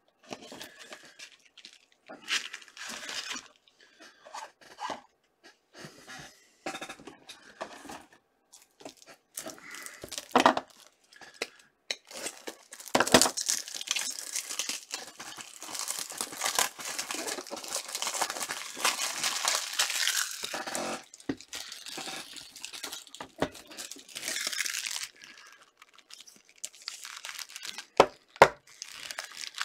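Plastic wrapping on hockey card packaging being torn and crinkled, with cardboard boxes and packs handled and set down in between. The tearing and crinkling is densest and loudest from about 13 to 21 seconds in, and there are a few sharp knocks, one about 10 seconds in and two near the end.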